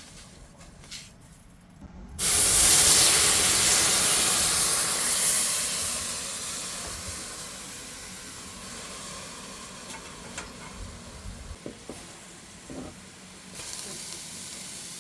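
Sizzling in a hot cooking pot: a sudden loud sizzle starts about two seconds in and slowly dies down to a steady, quieter sizzle, with a few light clicks later.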